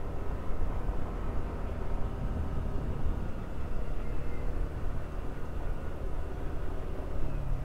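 Yamaha NMAX 155 scooter's engine running as it pulls away and rides on, under steady wind and road rumble.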